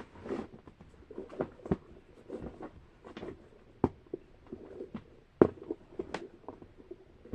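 Fidget toys being rummaged through in a container: irregular clicks, knocks and rustling, with the sharpest knock about five and a half seconds in.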